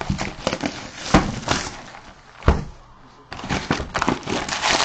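Packaging of a sealed box of baseball cards being torn open: crackling and tearing with sharp clicks, and a loud snap about two and a half seconds in.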